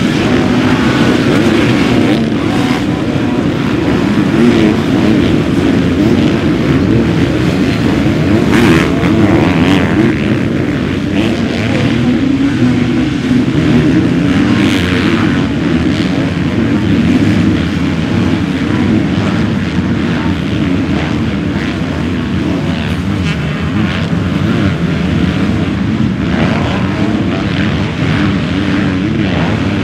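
250 cc four-stroke motocross bikes racing, engines revving up and down continuously as they go round the track.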